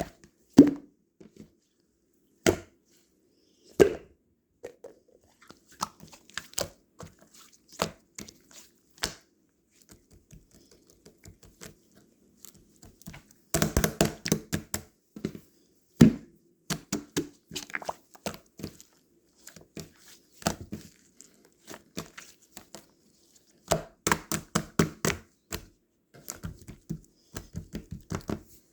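Blueberry pudding and its container being handled: scattered sharp taps and clicks, with two runs of quick tapping, one about halfway through and one toward the end.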